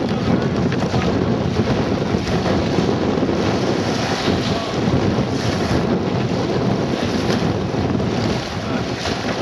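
Strong wind blowing across the microphone, a steady low rushing rumble, over choppy water.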